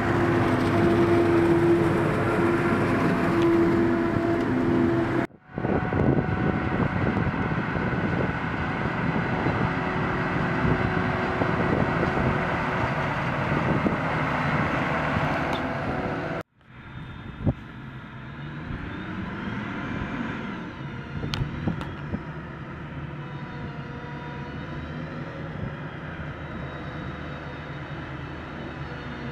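Farm machinery working in a maize field: the diesel engine of a tractor hauling a forage wagon, running steadily, then a Claas Jaguar 960 forage harvester chopping maize, quieter, with a whine that rises and falls. The sound breaks off twice with abrupt cuts, about five seconds in and just past halfway.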